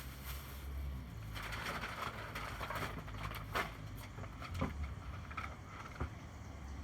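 Rustling and handling noise with scattered sharp clicks and knocks, the sound of someone rummaging through things while searching, over a steady low hum.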